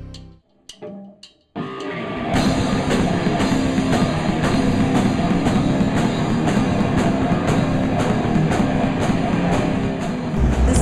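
Heavy metal music with drum kit and distorted guitar kicks in about one and a half seconds in, after a short near-silent gap with a few sharp hits, then plays loud and dense with a steady drum beat.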